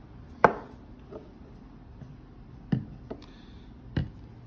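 Handling noise: five scattered sharp knocks and taps, the loudest about half a second in and a pair near the end. They come as the empty cardboard box and the unpacked items are handled.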